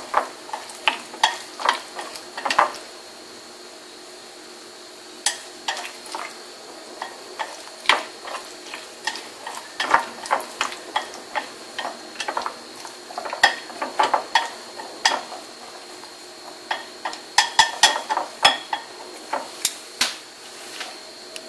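Wooden chopsticks stirring boiled sweet corn kernels in beaten egg in a glass bowl, clicking and scraping against the glass in irregular taps. There is a pause of about two seconds a few seconds in and a shorter one later.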